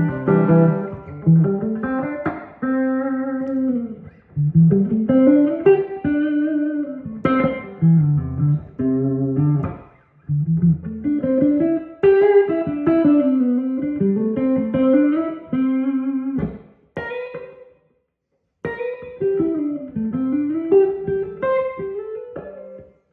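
Electric guitar played through a guitar amplifier: single-note lead phrases with many bends and slides, in a fairly clean, sustaining tone. The playing pauses briefly about two-thirds of the way in, then picks up again.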